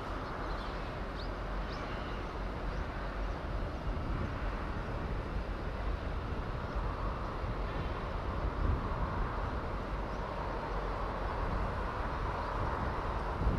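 Steady outdoor background noise: a low rumble under an even hiss, with a few faint high chirps about a second in.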